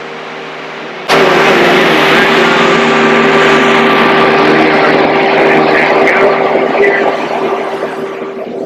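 Idling marine engines with a steady hum, and a loud mechanical whir that cuts in suddenly about a second in and eases off near the end.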